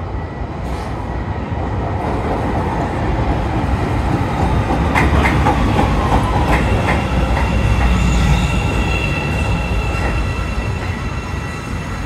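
A Bombardier 5000-series Chicago 'L' train pulls into an elevated station and brakes to a stop. A low rumble of steel wheels on rail grows louder toward the middle, with clicks over the rail joints about five seconds in, then a falling whine as it slows and a high steady whine from about halfway through.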